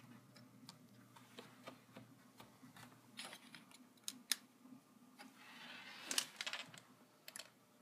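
Faint clicks, taps and handling noise of hands working on a laptop, pressing the rubber screw covers back into the screen bezel and handling small parts and tools on a desk. A short rustle of plastic comes about five and a half seconds in, and the sharpest clicks fall about four and six seconds in.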